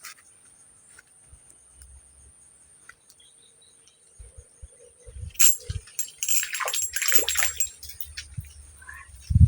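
Water splashing: one sharp splash about five and a half seconds in, then a run of splashes for a second or so, over a steady high-pitched drone.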